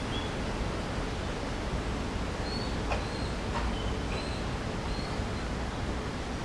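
Steady outdoor background hiss, with a few short high bird chirps from about two and a half seconds in.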